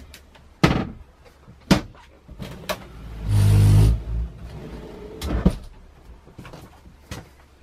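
A motorhome's sliding wooden bathroom wall being worked by hand: several sharp knocks and clicks of the panel and its catch, with one loud sliding run of just under a second about three seconds in, and another knock near the end.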